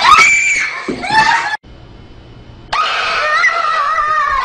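Frightened screaming with sharp rising glides, cut off after about a second and a half. After a short quiet gap, a second long, high scream starts and holds, wavering slightly in pitch.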